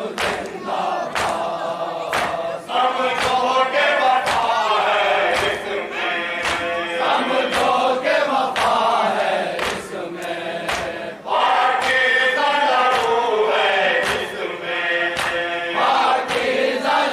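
A group of men chanting a Shia noha (mourning lament) in unison, with a steady beat of sharp thumps about two per second, typical of matam (rhythmic chest-beating). The voices break off briefly about ten seconds in, then resume.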